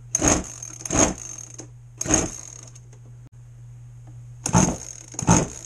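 Zenoah two-stroke RC boat engine being pull-started: five quick cranks on the recoil starter, three, a short pause, then two more. The spark plug is only partly screwed in to vent a badly flooded cylinder. A steady low hum runs underneath.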